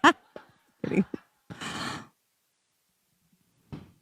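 A woman breathing into a microphone between sentences: a brief voiced sound about a second in, then a heavy breathy exhale like a sigh, and a faint short breath near the end.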